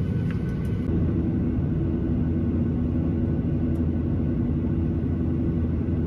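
Steady low rumble of a vehicle in motion, with a steady low hum over it.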